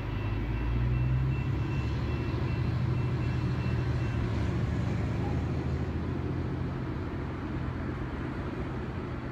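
Steady low engine rumble from an unseen distant vehicle, loudest in the first half and easing off a little after that, with a faint thin high whine that stops about four seconds in.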